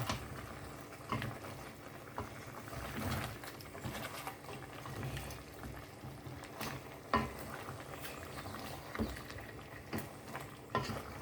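Stewing chicken and pork simmering in a pot with a low bubbling, and about six separate knocks of a utensil against the pot.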